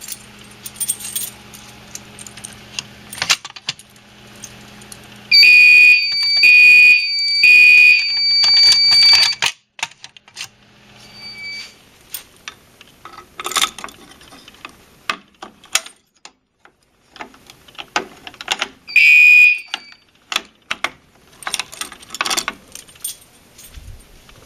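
Gentex fire alarm horns sounding during an audible walk test. A few seconds in they give three loud blasts and then a steadier tone lasting about a second and a half, with one more short blast later. Clicks and metallic rattles of handling run between the soundings.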